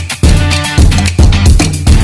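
Background music: a band with drums keeping a steady beat over a sustained bass line.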